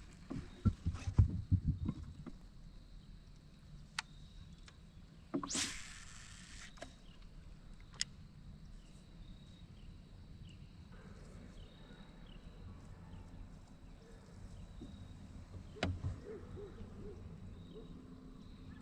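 Knocks and thumps of gear being handled in a plastic fishing kayak, with a brief hissing rush about five seconds in and a few sharp clicks. Faint high chirps repeat in the background through the second half.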